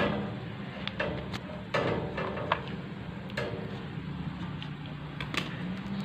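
Scattered clicks and knocks of tools and metal tubing being handled during refrigerator repair, a few with a short ringing tail, mostly in the first half, over a steady low hum.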